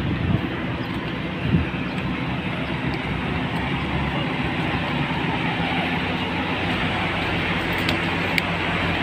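A motor vehicle's engine running steadily with a low hum, with two short knocks in the first couple of seconds.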